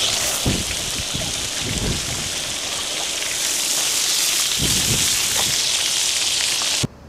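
Water from a garden hose spraying down on the building's roof and walls, a steady hiss and patter like rain, with a few soft thumps. It cuts off suddenly near the end.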